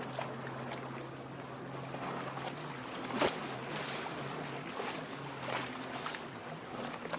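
Lake water lapping and splashing against the shore, with the loudest splash about three seconds in, over a steady low hum.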